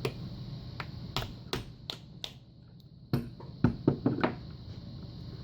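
Sharp metal-on-metal taps of a screwdriver striking a stuck pin in a Lockwood padlock, trying to knock it down. About ten irregular taps, the loudest ones in the second half.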